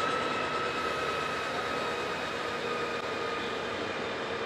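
Truck chassis running on an end-of-line roller test stand: tyres and rollers spinning with a steady mechanical whine over a rushing noise, the pitch sinking slightly.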